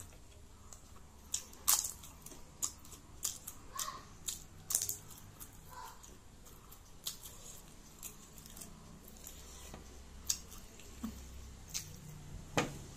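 Close-miked eating: chewing with a dozen or so sharp, irregular crunches and mouth clicks as rice, curry and crisp fried papad are eaten by hand. A faint steady low hum runs underneath.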